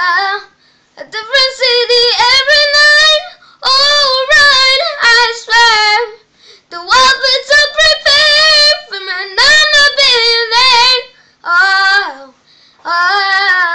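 A boy singing unaccompanied in short phrases with a wavering vibrato, breaking off briefly between lines.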